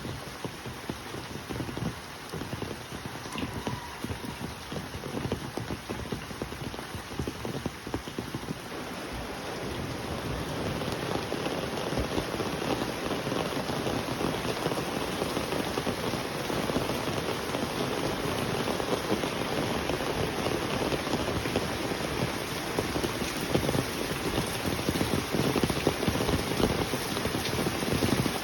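Steady rain falling, a dense patter of drops, growing heavier about a third of the way in.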